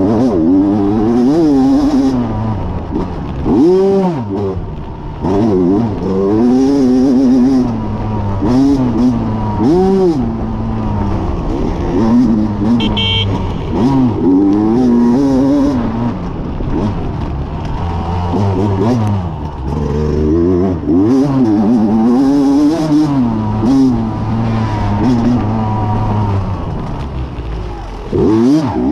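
Off-road dirt bike engine heard close up, revving up and down over and over as the throttle is opened and closed on the trail.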